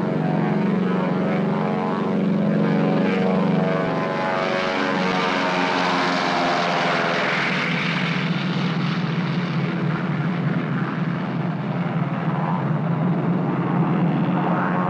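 Propeller airplane engine drone, steady and loud, with a rushing hiss that swells in the middle and its pitch shifting slightly as it goes.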